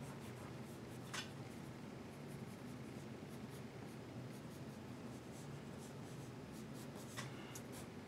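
Pencil scratching faintly on drawing paper in short sketching strokes, with two sharper scratches, one about a second in and one near the end.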